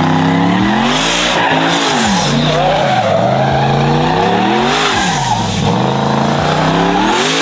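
Turbocharged Silverado pickup's V8 pulling hard at full throttle during a roll race. Its revs climb and fall away several times over a steady loud rush of engine and tire noise.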